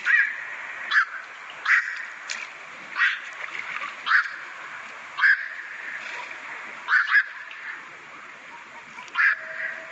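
A recorded bird calling with short, harsh calls about once a second over a steady background hiss. The recording cuts off suddenly at the end.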